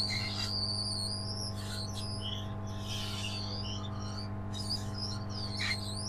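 Steady electrical hum of an SMD hot-air rework station running while it heats the phone's back panel, with repeated high, wavering chirps over it.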